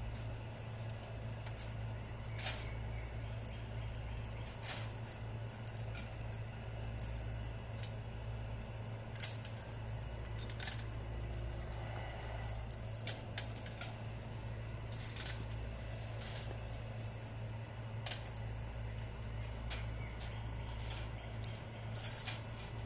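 Scattered light metallic clinks of hex-head roofing screws knocking against one another and a wire-mesh grid as they are handled, loudest in short clusters near the end, over a steady low hum.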